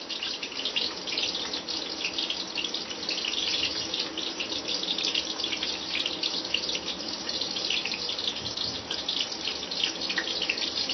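Small onions frying in hot oil in a pan, a steady crackling sizzle.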